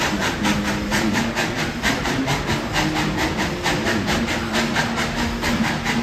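Baldwin steam locomotive No. 190 working under way, its exhaust chuffing in a rapid, even beat of about six a second, with a low wavering drone beneath.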